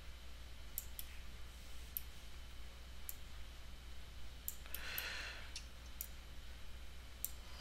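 Scattered computer mouse clicks, irregularly spaced about once a second, over a steady low hum, with a brief soft hiss about five seconds in.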